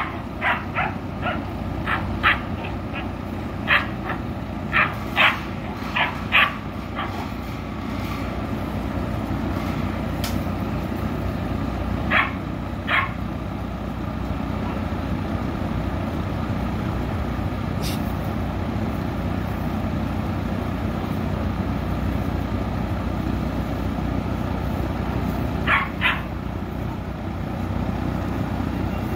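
Anatolian Shepherd puppies barking in short, high barks: a quick run of about ten in the first several seconds, a pair around the middle and another pair near the end, over a steady low rumble.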